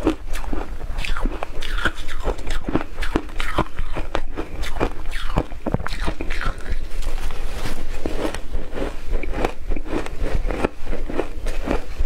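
Close-miked crunching of shaved ice being bitten and chewed: a dense, continuous run of crisp crackles and crunches.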